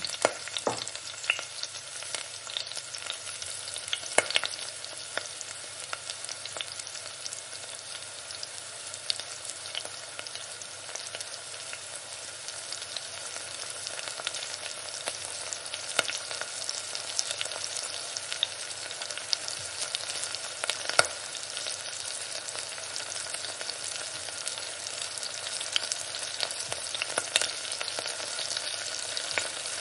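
Sliced onions sizzling and crackling steadily in hot mustard oil in an aluminium pressure cooker. A steel ladle stirs them near the end.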